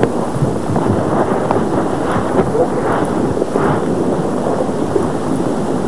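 Crowd murmur: many voices talking at once, none of them clear, as a steady babble.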